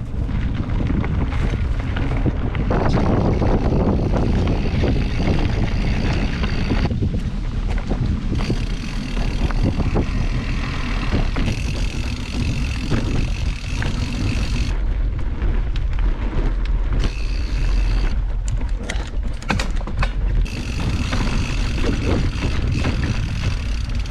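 Mountain bike riding over a dirt trail, with heavy wind buffeting the microphone, a low rumble and scattered rattling knocks. The sound changes abruptly several times, as separate riding stretches are cut together.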